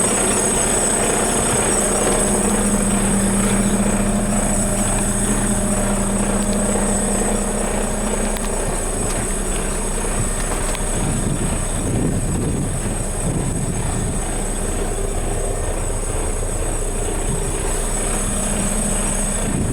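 Diesel engine of a Mercedes-Benz Arocs 3243 concrete mixer truck running steadily, with a steady high whine above it. The low hum eases about a third of the way in and turns rougher for a few seconds in the middle.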